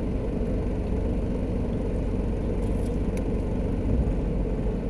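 Steady low rumble of a car, with a few faint clicks near the middle.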